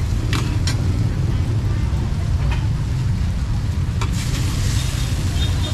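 Busy street ambience: a steady low rumble of passing traffic with voices in the background and a few sharp clicks.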